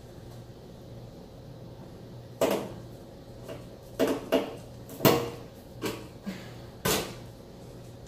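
A series of about six sharp knocks and clanks, roughly one a second, over a low steady hum: parts of a dishwasher being handled while its door and broken door spring are repaired.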